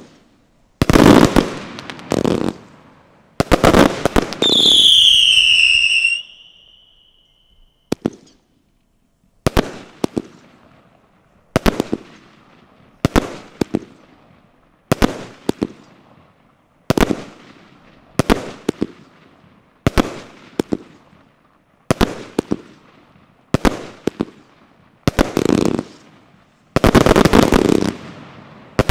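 Zeus Fireworks Retribution, a 200-shot 25 mm compound firework cake, firing: quick salvos of shots, each launch followed by the shell's burst, with a falling whistle about four seconds in. After a short pause it fires single shots about once a second, closing with a fast volley near the end.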